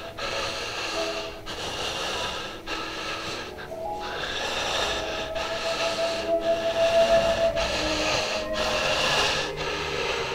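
Music of long held notes that step from pitch to pitch, over a breathy hiss, with short breaks every second or so.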